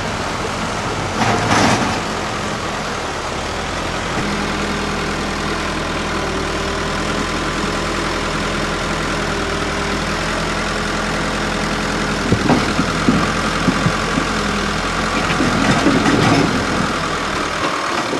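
Case 580 backhoe loader's diesel engine running steadily, with a short rattle about a second in. In the last few seconds come a series of knocks and rattles as dirt and rocks are tipped from the front bucket.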